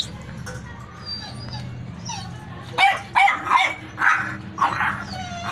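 Puppies barking: fainter calls at first, then a quick run of about six short, high-pitched barks starting about three seconds in.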